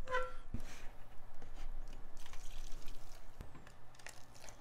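Hot shrimp broth being scooped and poured from a pan into a paper cup of instant noodles, splashing and trickling onto the noodles, with a few light knocks.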